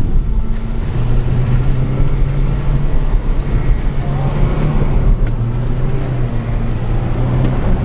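Sports car engine running steadily while driving, a loud low drone whose pitch shifts slightly, over a noisy rushing background.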